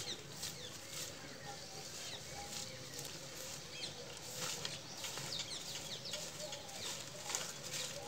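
Short hand broom of dry grass stalks sweeping dry leaves and litter across a dirt floor in repeated swishing strokes, with birds chirping in the background.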